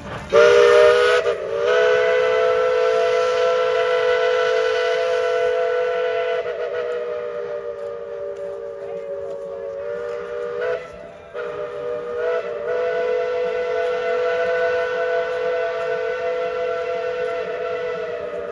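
Steam locomotive chime whistle sounding a chord of several tones: one long blast of about ten seconds, a short break, then a second long blast.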